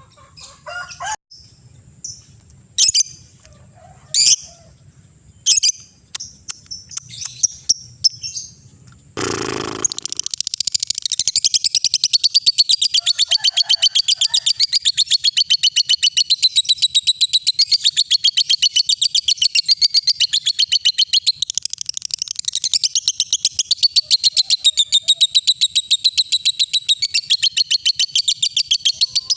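Lovebird giving scattered short, high chirps, then a brief burst of noise about nine seconds in. After that it breaks into the long, unbroken, very rapid chattering trill known as 'ngekek'.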